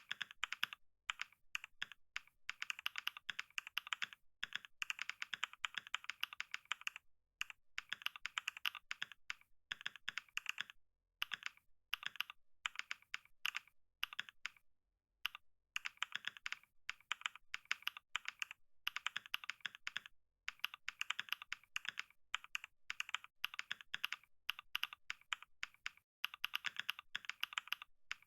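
Fast typing on a computer keyboard: rapid key clicks in runs of a few seconds, broken by short pauses.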